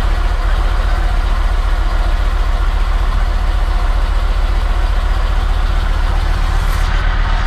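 Yamaha MT-01's 1670 cc V-twin engine idling steadily.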